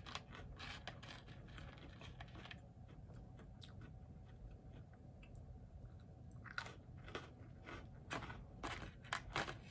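A person chewing food, with scattered crunches that come more often in the last few seconds.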